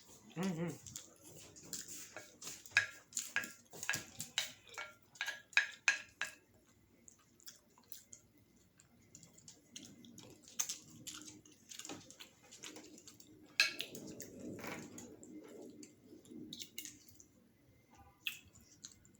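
Close-miked eating sounds: wet mouth clicks and smacks from chewing food, coming quickly for the first six seconds or so, then sparser.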